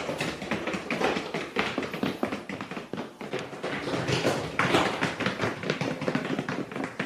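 Small dogs wearing boots running on a hard floor: fast, irregular tapping of booted paws.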